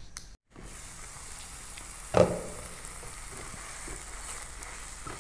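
Thick yogurt-and-spice marinade sizzling as it fries in a nonstick pan and is stirred with a silicone spatula, at the stage of cooking it down until the oil separates. One short sharp knock about two seconds in is the loudest sound, and the sizzle cuts out for a moment near the start.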